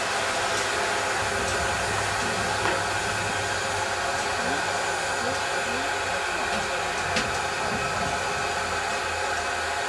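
Steady hiss of steam escaping from a standing steam locomotive, with a faint low rumble underneath.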